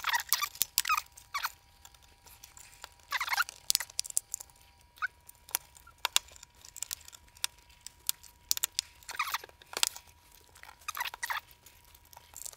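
Plastic case of a Sharp PC-G850 pocket computer being pried at with a tool: spurts of creaking and scraping with small sharp clicks, coming and going several times as the tool is worked at the seam.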